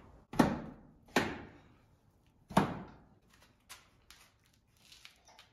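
Metal toggle-clamp latches on a kiln door being released with three sharp clacks, each ringing briefly, then fainter clicks and knocks as the heavy door swings open.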